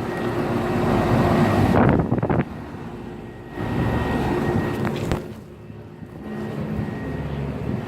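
Steady electrical hum of outdoor air-conditioner condensing units running, under a rushing air noise that swells and dips several times.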